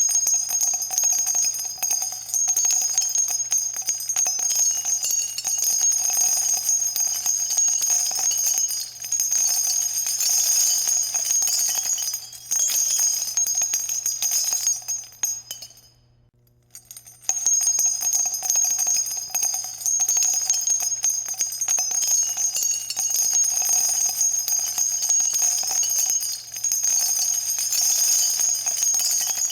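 Falling-crystals sound effect: a dense, continuous glassy tinkling, bell-like and shimmering high up, over a faint low hum. It cuts out for about a second and a half midway, then starts again.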